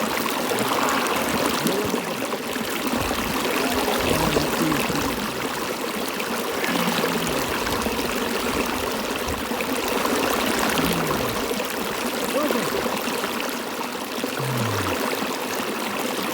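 Stream water flowing steadily, with a few brief low sounds that fall in pitch.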